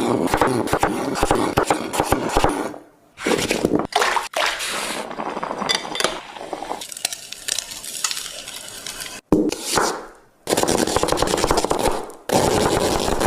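Kitchen cooking sounds: a utensil stirring and scraping in a pan with clattering of cookware, heard in several short clips that cut off abruptly.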